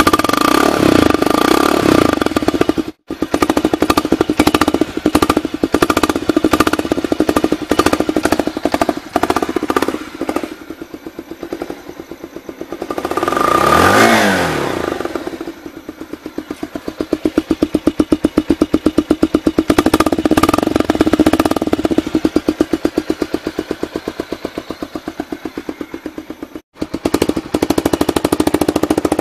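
Bajaj Pulsar 150's single-cylinder engine running through a beer can wired over its silencer tip, a rapid pulsing exhaust note blipped several times. About halfway through it is revved high, rising and falling back. The owner likens the note to a KTM Duke's.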